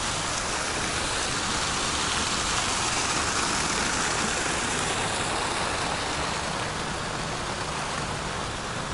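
Park fountain's water jets splashing into their pool: a steady hiss of falling water that swells a little in the middle and eases off toward the end.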